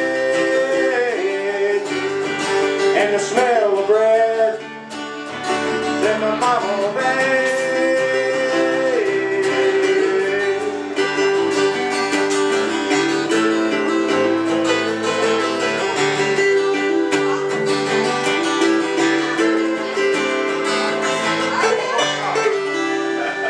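Two acoustic guitars and an electric keyboard playing the closing instrumental bars of a slow acoustic song, with a few held, wavering melody notes above the strummed chords.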